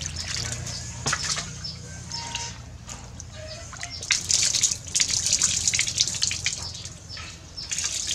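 Water poured from a scoop over raw fish pieces in a plastic dish, splashing and dripping as they are rinsed by hand and running off onto a wet concrete floor. The splashing is heavier about halfway through.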